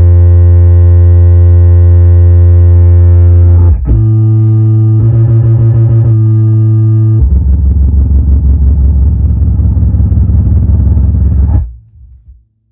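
Macintosh death chime played very low from a MIDI keyboard: three long, loud, distorted bass notes, the first changing to a higher note about four seconds in. That note pulses briefly before dropping to a lower, throbbing note that cuts off suddenly near the end.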